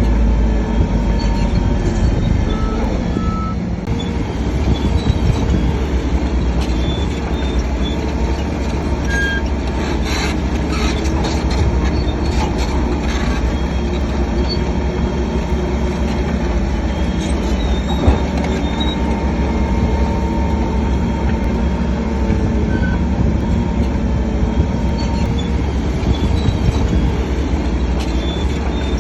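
Crawler bulldozer at work: its diesel engine running steadily under load while the steel tracks squeal in short high-pitched bursts throughout.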